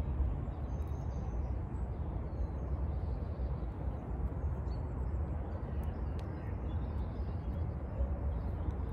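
Steady outdoor background noise with a low rumble, with a couple of faint clicks near the end.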